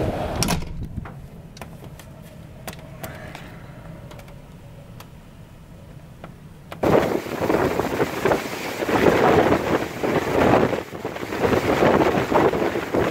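A steady low rumble of a ship in heavy seas, muffled as heard from inside a cabin, with a few sharp clicks. About seven seconds in, it switches abruptly to loud gusting storm wind buffeting the microphone over rough, breaking sea.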